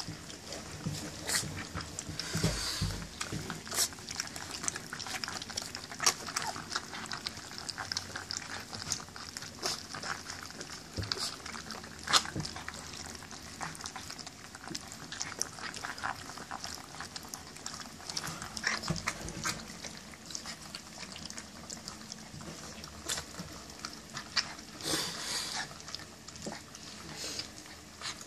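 German Shepherd puppies eating kibble from a stainless-steel pan: many small, irregular wet smacks and clicks of mouths and food.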